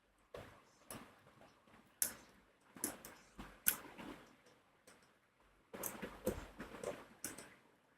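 Plastic Rubik's cube pieces clicking and knocking irregularly as they are handled and fitted back into the cube by hand, with a busier run of clicks in the second half.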